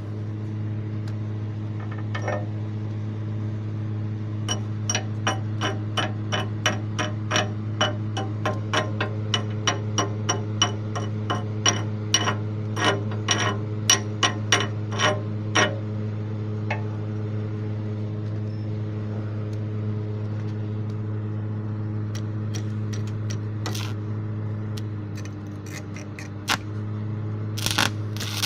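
Arc welder humming steadily with no arc struck. Over it come sharp metallic taps, about two a second for some ten seconds, then a few scattered taps near the end, typical of a chipping hammer knocking slag off a 7018 stick weld bead.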